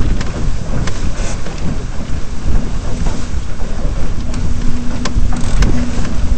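Wind buffeting a deck-mounted microphone on a Flying Dutchman dinghy sailing fast, with water rushing and splashing along the hull and scattered sharp ticks. A steady low hum joins about four seconds in.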